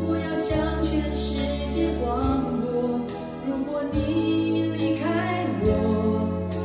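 A recorded song with a lead singing voice over held bass notes that change every second or two, played through a pair of Focal Chorus 706 bookshelf loudspeakers and heard in the room.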